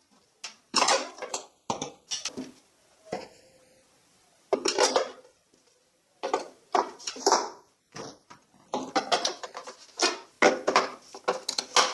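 Hard plastic toy guns and parts being handled: irregular clacks and short rattles with brief pauses between them, turning into a quick run of clicks over the last few seconds.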